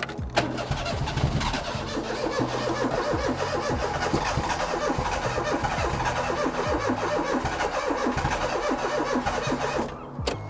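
The Daihatsu Mira's swapped turbocharged engine catches just after the start and runs for about nine seconds, then dies near the end. The engine starts but won't keep running, which the owner puts down to something wrong in the vacuum line routing.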